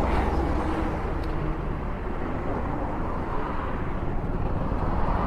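Steady motor-vehicle noise: a low engine rumble with traffic sound, growing slightly louder near the end.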